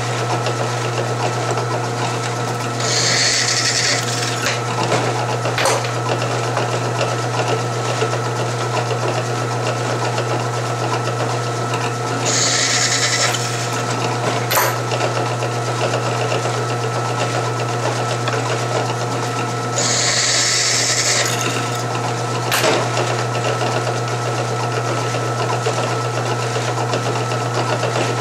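Drill press motor running steadily while a 17/64-inch bit enlarges the holes in fender washers held in tongue-and-groove pliers. Three one-second bursts of higher cutting noise as the bit goes through a washer, each followed by a sharp click.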